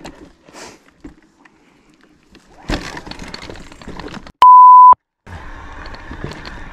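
A single loud electronic beep of one steady pitch, lasting about half a second past the middle, with the sound cut to silence just around it, the kind of tone edited in to bleep out a word. Before and after it come the rattle and rolling noise of a mountain bike on a dirt trail.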